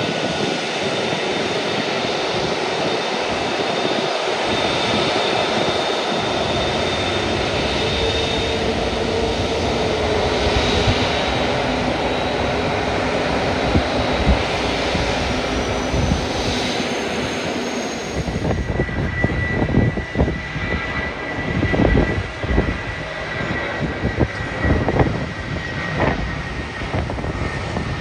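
Jet airliner engines running, a steady loud rush of noise with thin whining tones through it. About eighteen seconds in the sound changes: the rush thins out and turns uneven, with irregular low gusts, while a faint steady whine carries on.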